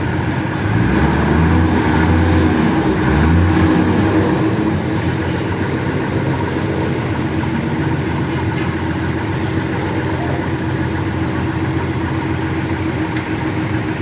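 Someca combine harvester engine running at idle, a steady hum. For a few seconds about a second in, it gets louder with an engine note that rises and falls, like a brief rev.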